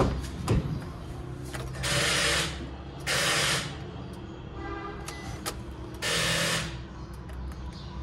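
Suzuki Wagon R's starter chattering in three short, harsh rattling bursts as the key is turned, a nasty sound from the starter getting too little current from a dead battery on jump leads. A car door latch clacks open near the start.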